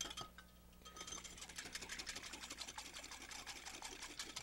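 Vinaigrette of vinegar and olive oil being whisked briskly in a small glass cup, the utensil clicking rapidly and evenly against the glass. The whisking pauses briefly about half a second in, then resumes.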